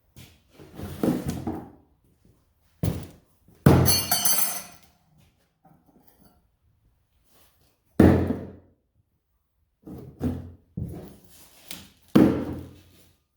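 Saw-blade steel throwing star being thrown and striking a target, a series of separate thunks. The loudest hit, about four seconds in, carries a bright metallic ring.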